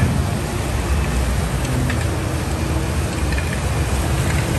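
Steady low rumble of a moving vehicle, with a few faint knocks.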